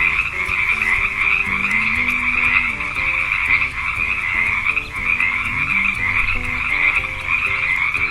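Frog croaking continuously, a dense unbroken call with brief dips about five and six seconds in.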